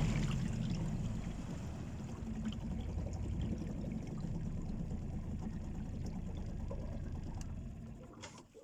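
Water splashing and rushing against the hull of a small motorboat as it slows, with no motor note; it fades out near the end.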